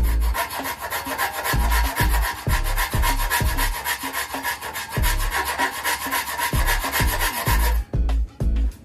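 Hardened steel needle file rasping back and forth across a handsaw's teeth in quick, repeated strokes, sharpening the saw; the filing stops near the end. Background music with a low beat runs underneath.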